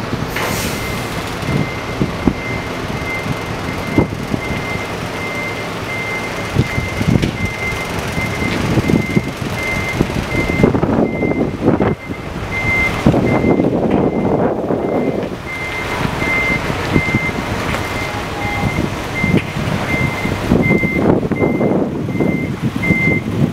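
Reversing beeper on a tractor-trailer backing up, a short high beep repeating at an even pace, over the truck's diesel engine, which swells louder in the middle and again near the end.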